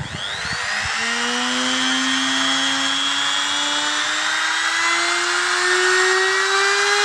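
Electric die grinder serving as a CNC router's spindle, switched on and running, its motor whine climbing slowly and steadily in pitch as it spins up.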